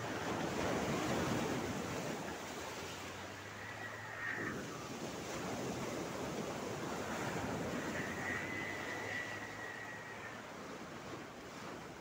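Sea waves washing in and breaking over flat shore rocks, a continuous surf that swells loudest about a second in and surges again in the middle.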